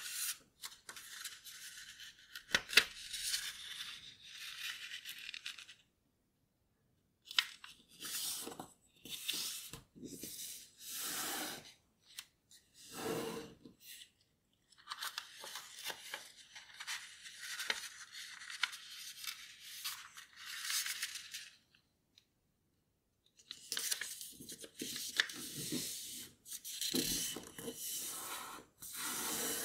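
A sheet of origami paper being folded and creased by hand: crinkly rustles and swishes come in bursts as fingers press and slide along the folds, with a few sharp crackles, broken by two short gaps of silence.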